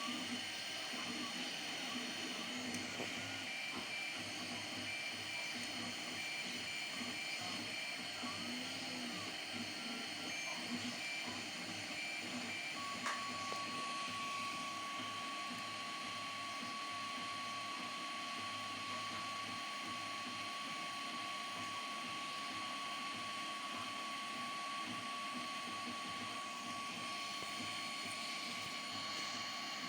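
3D printer running: a steady fan hiss and hum, with stepper motors whining in short glides that rise and fall as the print head moves. About halfway through, a steady high whine sets in and holds.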